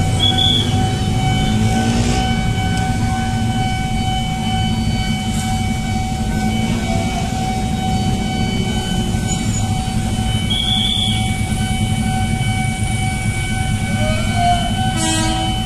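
Steady low engine rumble with a constant high-pitched electronic tone over it. Two short high beeps sound, just after the start and about eleven seconds in, and a brief knock comes near the end.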